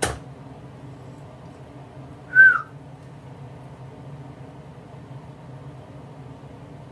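A single short whistle-like chirp, sliding down in pitch, about two and a half seconds in, over a steady low hum, with a sharp click at the very start.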